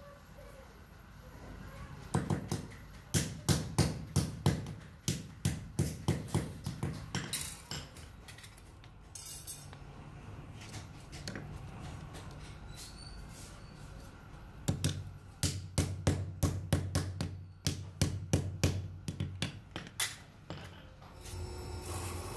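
Hammer striking rivets on a small steel anvil to fix wooden handles to stainless steel spoons: two runs of quick metallic blows, about four a second, with a pause between, over a steady low hum.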